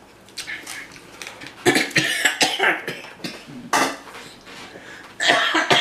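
A man coughing in several short, harsh fits, brought on by the chili heat of extra-spicy instant noodles.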